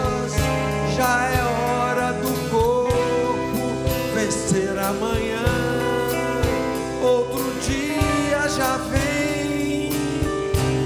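Live band music: acoustic and electric guitars, keyboards and drums playing steadily under a wavering melody line.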